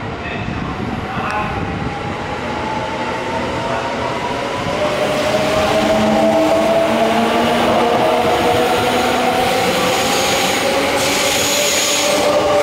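JR West limited express electric train pulling out of the platform and accelerating past. Its traction motors whine in several tones that rise steadily in pitch, and the running noise grows louder for the first half and then holds.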